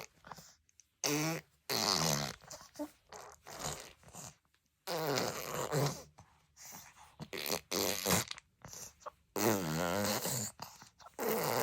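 A baby blowing raspberries, buzzing its wet lips with its voice in several bursts of about a second each, with smaller sputters and coos between them.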